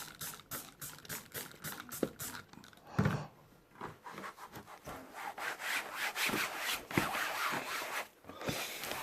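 Repeated back-and-forth rubbing strokes by hand on the surface of an antique being cleaned up, with a single thump about three seconds in. The rubbing gets louder and denser about halfway through.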